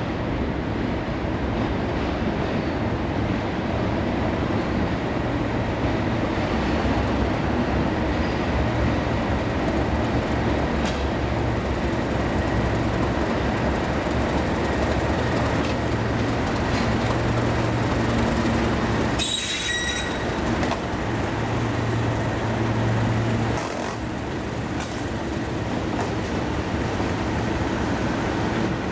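Two Class 37 diesel locomotives, each with an English Electric V12 engine, running as they haul a scrap train past with a steady low drone. The sound cuts off abruptly about two-thirds of the way in and goes straight on with the same pair of locomotives passing again.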